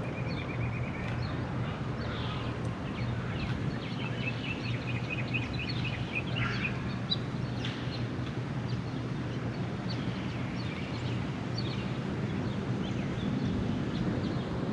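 Birds singing and chirping, with two fast trills of evenly repeated notes, one at the start and another about four seconds in. Under them runs a steady low rumble of wind and road noise from a moving bicycle.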